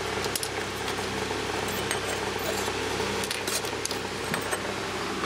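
A steady low hum, with a few light clicks and taps as test leads and a small circuit module are handled.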